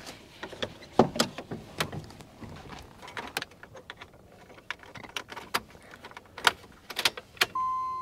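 Keys jangling and a series of clicks and knocks as the ignition key is handled and turned. Near the end a steady electric whine starts abruptly: the 1993 Jeep Grand Cherokee's electric fuel pump priming and building pressure in the repaired fuel lines with the key on.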